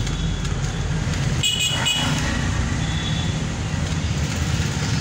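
Steady low rumble of street traffic and vehicle engines, with a short high-pitched beep, like a horn toot, about a second and a half in.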